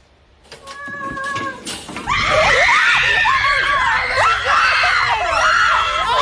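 Shrill screaming starting about two seconds in: several high-pitched cries that swoop up and down and overlap, loud and continuous.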